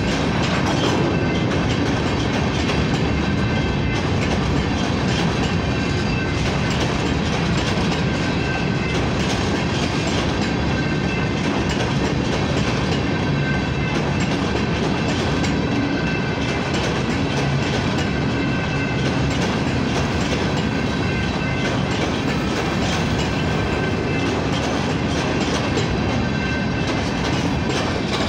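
Covered hopper cars of a Canadian Pacific freight train rolling past at close range: the steady rolling noise of steel wheels on the rails.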